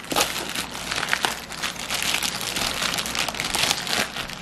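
White plastic poly mailer bag being torn open and pulled apart by hand: continuous crinkling of the plastic with many quick, sharp crackles and rips.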